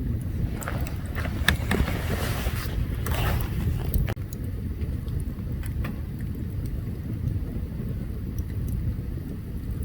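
Open campfire burning, with scattered sharp crackles and pops over a steady low rumble. A rush of hissing swells for a few seconds near the start, then dies back to the crackling.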